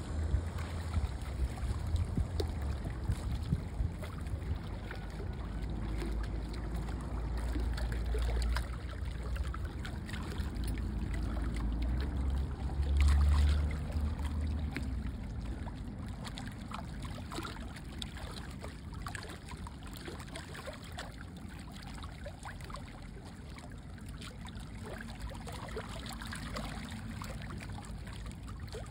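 Seawater lapping and trickling, with many small splashes, while wind rumbles on the microphone, heaviest in the first half and loudest around the middle, then dying down.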